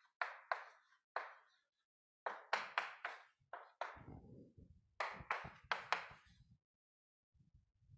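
Chalk knocking and tapping against a chalkboard as numbers and symbols are written: about a dozen short, sharp taps in small clusters, with some duller low knocks in the middle.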